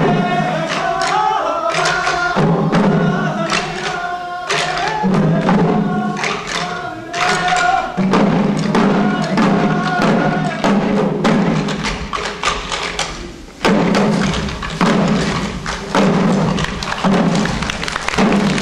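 Shishi odori deer-dance drums, the small taiko worn on the dancers' chests, beaten in a steady pattern. For about the first eight seconds voices chant the dance song over the drums, then only the drumming goes on, in fast, dense strokes.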